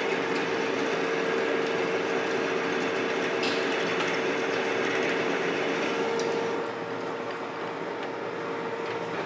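Monarch engine lathe taking a heavy facing cut in steel, about 0.2 inch deep at roughly 7.5 thou per revolution feed: a steady machine hum with a constant tone and the hiss of the cut, the machine not straining at all. The sound drops about two-thirds of the way through and falls away again at the end as the lathe is stopped.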